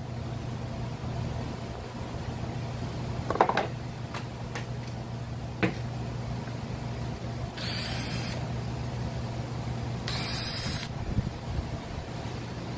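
Cordless drill-driver whirring in two short bursts of under a second each as it backs screws out of a Mitsubishi TU43 brush cutter's engine to open it up, after a few sharp clicks and knocks of handling the engine. A steady low hum runs underneath.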